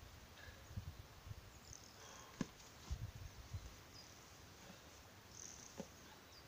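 Faint, near-quiet forest ambience with a few soft low thumps and one sharp click about two and a half seconds in, and short faint high chirps, one near the end.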